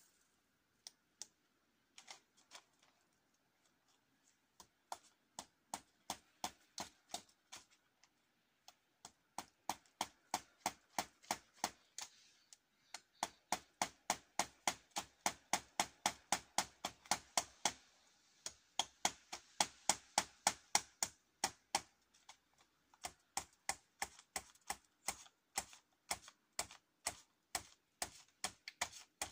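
Hammer driving nails into a wooden hut frame: runs of quick, regular strikes, about three to four a second, broken by short pauses.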